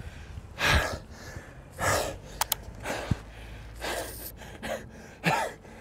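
A man gasping for breath, heavy panting breaths about one a second: he is out of breath from running up a long, steep flight of stone steps.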